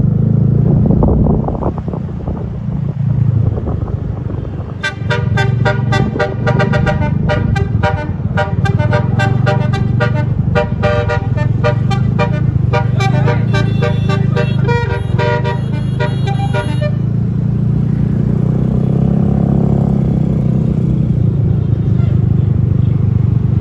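Bus 'basuri telolet' multi-tone horn playing a fast tune of short notes for about twelve seconds, starting about five seconds in, over the steady low rumble of the bus engine.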